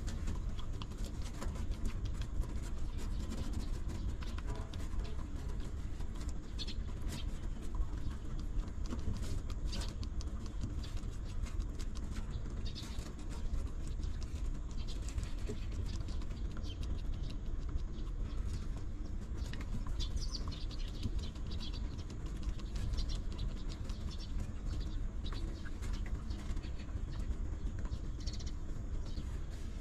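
Newborn puppies squeaking and whimpering in short, scattered high chirps while they nurse, with the mother dog's soft licking, all over a steady low rumble.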